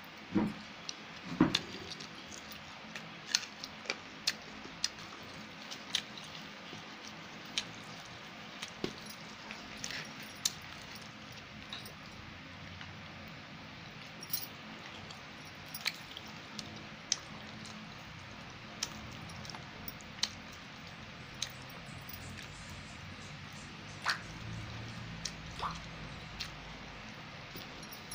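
Hand eating from a steel plate: fingers tearing puri and mixing rice with wet chicken curry, giving soft squishes and scattered sharp clicks against the plate.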